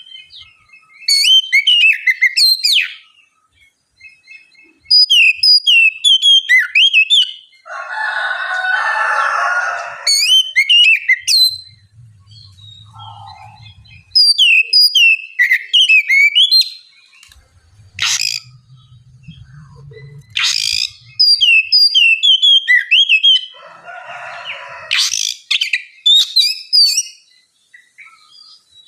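Oriental magpie-robin (kacer) singing in bursts of rapid, repeated down-slurred whistled notes, each run lasting a couple of seconds with short pauses between. Twice the song is broken by a longer harsh, raspy chatter.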